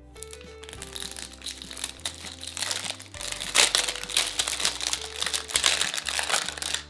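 Crinkly plastic wrapping of a toy blind pack being crumpled and pulled open, a dense run of crackles that grows louder through the middle. Soft background music underneath.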